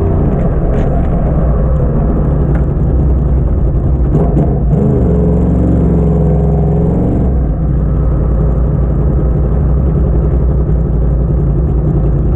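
2010 Yamaha YZF-R1's crossplane inline-four through a Yoshimura slip-on muffler, running at low speed. The engine note rises in a short sweep about five seconds in, holds steady, then drops away to a low rumble about seven seconds in.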